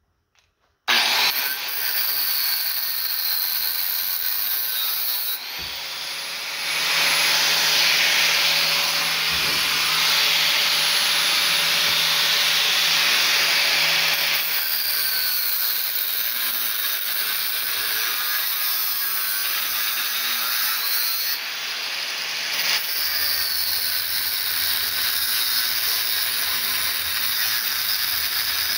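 Angle grinder with a cut-off wheel starting up about a second in and cutting through the copper bars of a large armature. The cutting is louder from about 7 to 14 seconds in.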